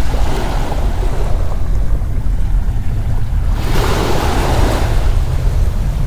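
Steady low rumble of wind and ocean surf. A louder rush of noise swells in about three and a half seconds in and fades after about a second.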